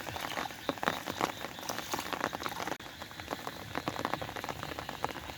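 Irregular patter of water drops and small splashes on shallow floodwater.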